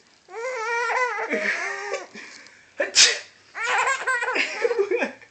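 A baby girl laughs in wavering, high bursts. About three seconds in, a person sneezes once, short and sharp, which is the loudest sound. Then she bursts out laughing again.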